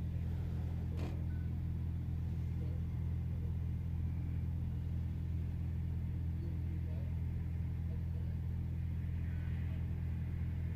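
Steady low drone of an idling diesel engine, even and unchanging, with a single sharp click about a second in.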